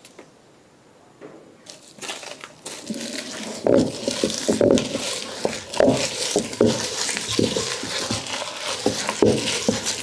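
Traditional stone grinder, a heavy cylindrical stone pestle worked in a stone basin, crushing whole bird's eye chillies with salt, jaggery and tamarind. Gritty crunching and stone knocking in quick irregular strokes start about two seconds in, after a quiet opening.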